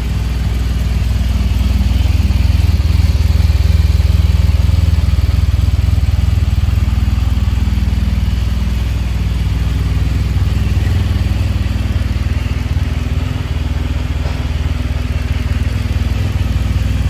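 BMW R1200R's boxer-twin engine idling steadily.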